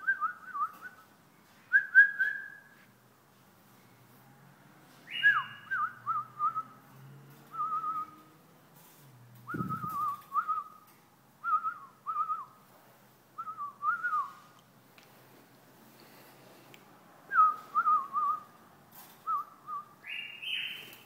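White-eared (Hasawi) bulbul singing: short, bubbly whistled phrases, one every second or two. A dull knock comes about ten seconds in.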